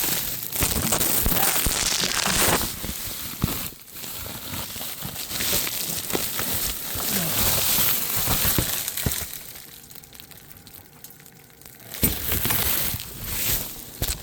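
Irregular crunching and rustling of cold, dry snow as a person moves through it. It quietens for a couple of seconds about ten seconds in, then picks up again near the end.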